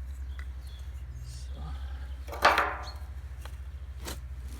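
Dry kindling sticks being handled for a campfire: a few light clicks and one sharp crack of wood about halfway through, over a steady low hum.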